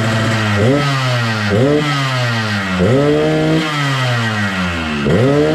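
Yamaha RX-King's two-stroke single-cylinder engine idling, then blipped on the throttle four times, each rev rising quickly and sliding back down slowly. The bike is set up for the deep 'ngorok' (snoring) exhaust note.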